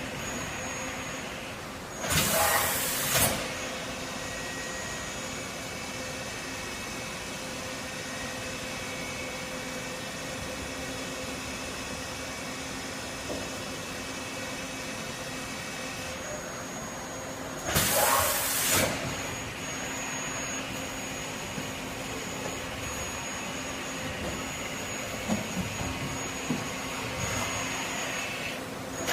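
Miyano MTV-T310 CNC vertical drilling/tapping center running with a steady hum and a high whine. Two loud, second-long hissing blasts of air come about two seconds in and again near eighteen seconds.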